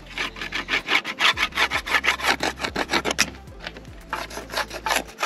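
Plastic ski scraper rubbed quickly back and forth along the ski's edge, about four strokes a second, breaking away the hardened wax there; the strokes turn softer near the end.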